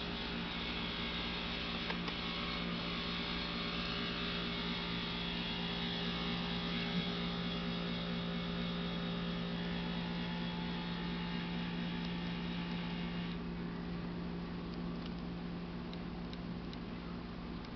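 Air conditioner running with a steady low hum. A higher hiss over it cuts off suddenly about thirteen seconds in, and a few faint ticks follow near the end.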